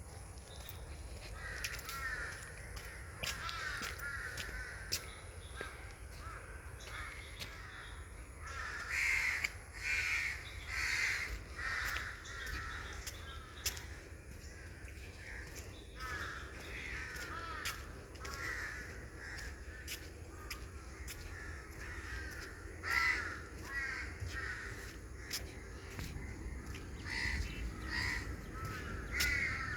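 Birds calling over and over, several calls overlapping, with the loudest bursts about nine to eleven seconds in and again near the end.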